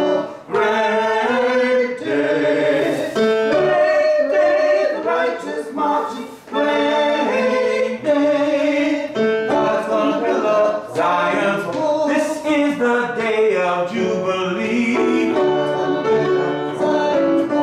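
A small group of singers singing a church anthem together.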